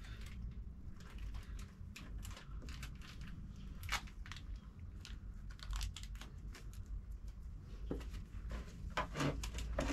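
Scattered light rustling and sharp little clicks of handling as a disposable glove and a plastic basin are handled, with the sharpest click about four seconds in, over a steady low room hum.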